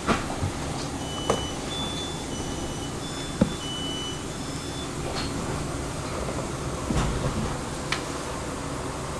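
Steady rumble of a train or station hall, with a short run of electronic beeps at two or three alternating pitches from about one second in to the middle, and a few scattered knocks.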